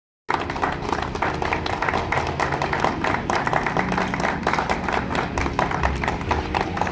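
A group of people clapping, many quick overlapping claps, starting just after the beginning.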